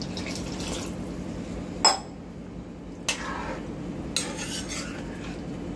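Water poured from a small glass into a steel kadhai of curry, then a steel ladle stirring and clinking against the pan, with a few sharp clinks, the loudest about two seconds in.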